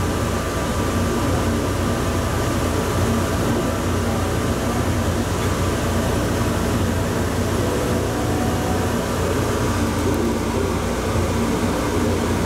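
Interior of a rubber-tyred automated people-mover train running steadily through a tunnel: an even rumble and hiss of travel, with a couple of faint steady whining tones.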